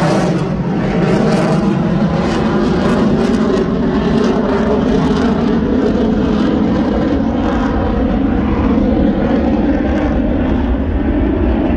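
Aircraft flying over the airfield: a loud, steady engine drone that does not let up.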